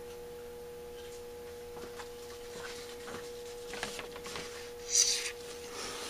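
Aerosol can of silicone spray lubricant giving one short hiss about five seconds in, sprayed into a carburetor choke housing to keep the choke moving freely. Under it a steady hum-like tone and a few light handling clicks of small metal parts.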